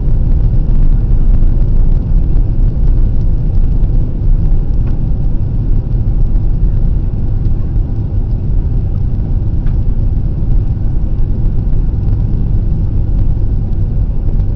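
Loud, steady low rumble of an airliner heard inside its passenger cabin: engine and airflow noise.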